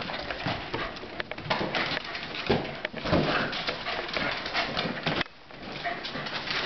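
Pembroke Welsh corgi's claws clicking and scrabbling quickly on a tile floor as it runs after and pounces on balloons, in a dense run of sharp taps and scuffs with a short lull about five seconds in.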